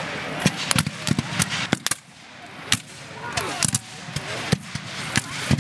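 Scattered black-powder rifle-musket fire: about a dozen sharp shots at irregular spacing, some loud and close, others fainter. Voices are heard in the background about halfway through.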